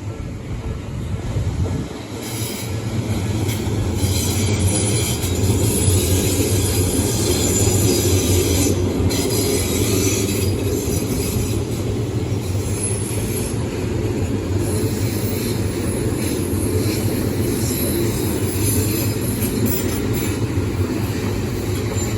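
Odakyu 8000 series electric train of two coupled sets passing close by at a level crossing, a steady heavy rumble of wheels on rail that grows louder about two seconds in and then holds.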